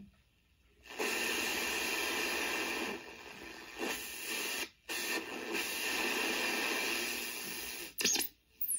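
Homebrew regenerative shortwave receiver hissing with band static as it is tuned, cutting out briefly at the start and again around five seconds in. Near the end a whistle sweeps down in pitch as the tuning crosses a signal.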